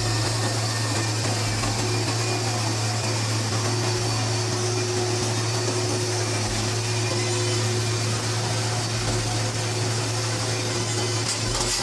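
Steady machine drone: a constant low hum under an even hiss, with no change in pitch or level.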